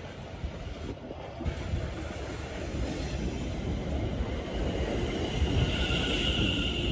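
A train running along the tracks, its low rumble growing louder, with a high steady squeal coming in about five seconds in.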